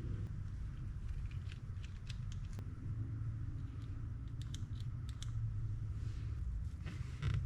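Scattered light clicks and taps of small metal parts of an Okuma Epix EB80 fishing reel being handled and fitted during reassembly, in small clusters, over a steady low background rumble.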